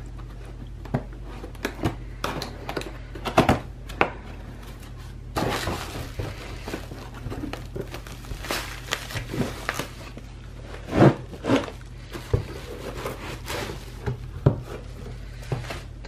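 A cardboard box being opened by hand: scattered clicks, scrapes and knocks of flaps and tabs, with a stretch of crinkling plastic wrapping about five seconds in, and a few louder thuds near the end.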